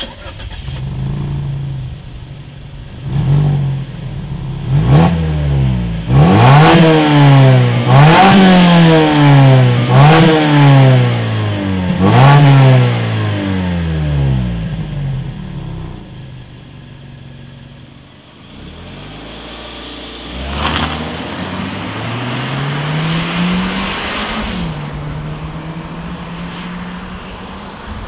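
2017 Mazda3's 2.0-litre four-cylinder engine heard at the exhaust: idling, then revved in about half a dozen quick blips that each rise and fall back. After a quieter idle it pulls away, the revs climbing steadily with one upshift near the end as it moves off.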